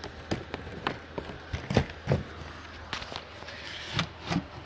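Irregular knocks, taps and rubbing as a carpeted trim panel is pushed and fitted into place over a car amplifier mount, the loudest knocks about two seconds in and near the end.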